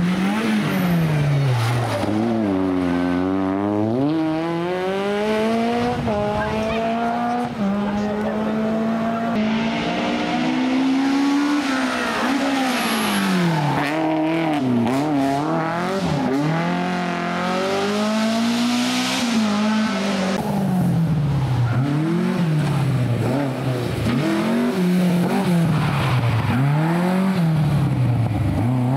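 Rally car engines at high revs, the pitch climbing and dropping over and over as the cars accelerate, shift and lift off. The sound changes abruptly twice, as one car's run gives way to the next.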